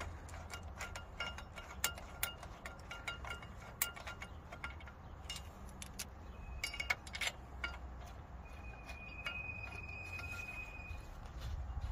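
Light, irregular metallic clinks and ticks of a hand tool turning the new wheel bearing bolts into the hub, with the steel brake disc and hub ringing briefly after the sharper clicks. A ringing note is held for a couple of seconds about two-thirds of the way through.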